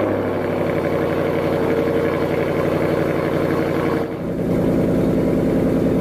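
A car engine running steadily, with a short dip and a change in tone about four seconds in.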